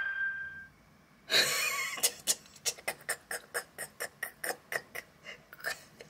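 A ringing tone fades out near the start; after a short hiss come evenly spaced ticks, about four a second, for most of the rest.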